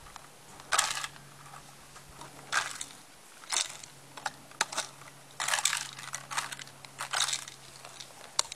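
A beagle biting and knocking a plastic drink bottle hung on a string, the thin plastic crackling and crunching in a string of irregular bursts.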